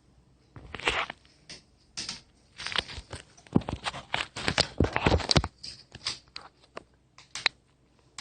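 Irregular clicks, taps and scrapes of hands working a new laptop LCD panel and its display cable into place, busiest in the middle and thinning out near the end.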